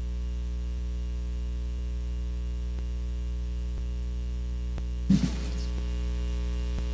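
Steady electrical mains hum with its overtones on the hearing-room sound feed, with a few faint ticks and a brief short sound about five seconds in.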